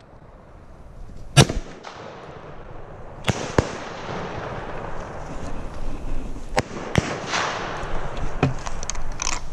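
One loud shot from a Browning BAR semi-automatic rifle in .300 Win Mag, about one and a half seconds in. It is followed by a series of sharper metallic clicks and knocks as the rifle is hurriedly reloaded, over a rising rustle.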